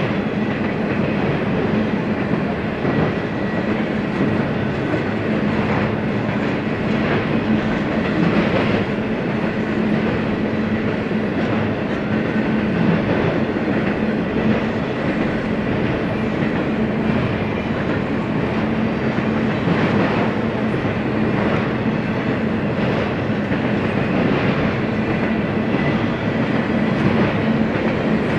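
Freight cars rolling past on the rails: a steady rumble of steel wheels with a low drone and an occasional click over the rail joints.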